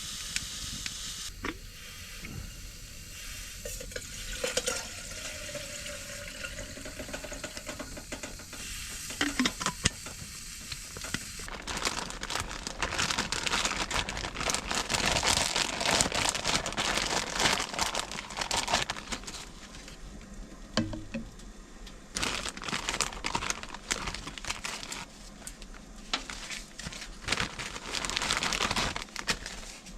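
Food sizzling and frying in a pan while a utensil stirs it and scrapes the pan. The sizzle grows louder and more crackly about twelve seconds in.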